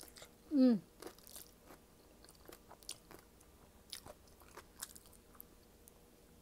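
A person chewing shrimp and vegetables close to the microphone: scattered soft crunches and wet mouth clicks. A short falling vocal sound comes about half a second in.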